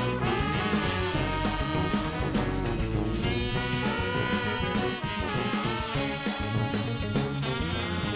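Background music: upbeat swing jazz with brass instruments and a steady beat.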